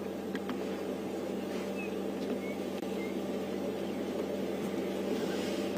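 Steady low background hum of the open bush, with a few faint clicks near the start and three short, faint high chirps.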